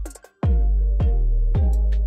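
Background electronic music with heavy bass and a drum-machine beat.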